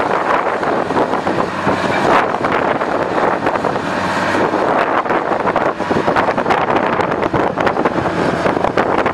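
John Deere 890A long-reach excavator's diesel engine running with a steady low hum as the arm and bucket move, mixed with heavy wind buffeting on the microphone.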